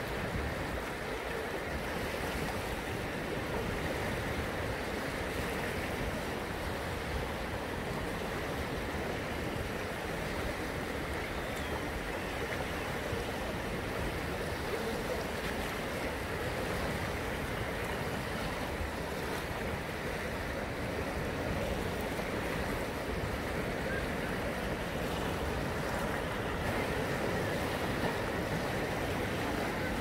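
Small waves washing and breaking on the shore: a steady, even rush of water.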